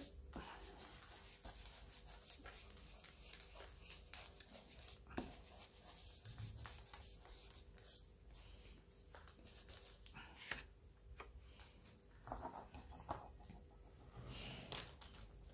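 Faint soft dabbing and rubbing of a foam ink-blending tool on paper, with light taps and paper cards being handled on a craft mat.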